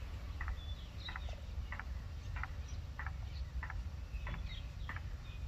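A short wild animal call repeated evenly, about three calls every two seconds, with a few faint higher chirps among them, over a steady low rumble.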